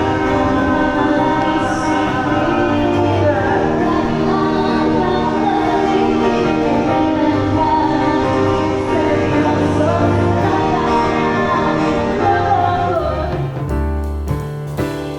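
Music with singing voices over instruments. About 13.5 seconds in it changes to a drum-and-bass groove with a steady beat.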